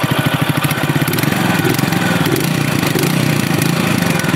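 Mutt Mastiff 250's single-cylinder engine, on its stock exhaust, idling and then blipped with the throttle from about a second in. The revs rise and fall for a few seconds, then settle back to idle near the end.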